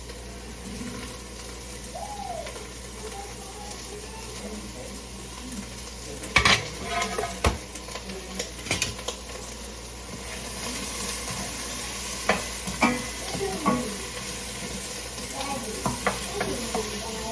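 Chopped vegetables sizzling in sesame oil in a frying pan over high heat on an electric stove, stirred with a utensil that knocks sharply against the pan a couple of times about six and seven seconds in. The sizzle grows brighter and louder from about ten seconds in.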